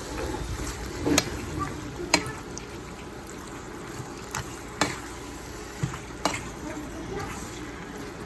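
Chicken curry frying in a pot with a steady sizzle, stirred with a metal utensil that knocks sharply against the pot half a dozen times at uneven intervals.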